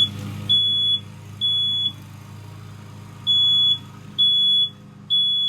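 First Alert SA76B smoke alarm sounding on test: loud, high-pitched half-second beeps in groups of three with a pause between, the standard three-beep evacuation pattern.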